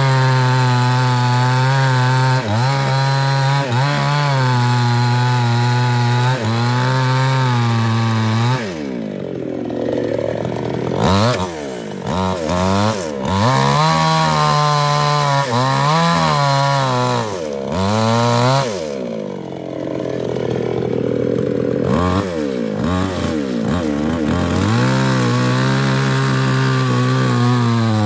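Two-stroke New West 628 chainsaw with a 24-inch bar cutting into a thick sengon trunk at full throttle. About nine seconds in the revs drop away and come back in short blips, then it runs flat out for a few seconds. It eases off again, revs back up and runs steadily at full throttle near the end.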